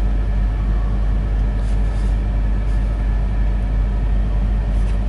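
Semi truck's diesel engine idling, a steady low rumble heard from inside the cab.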